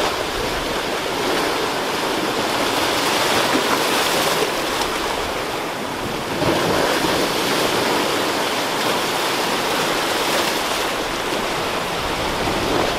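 Ocean surf breaking and washing over a rocky shoreline: a steady rush of white water that swells a few times as waves come in.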